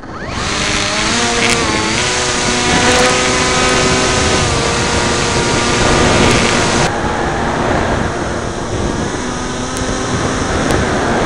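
Small foam FPV model plane's electric motor and propeller whining as the throttle comes up, the pitch rising over the first couple of seconds and then holding steady. Heavy wind noise buffets the onboard microphone throughout.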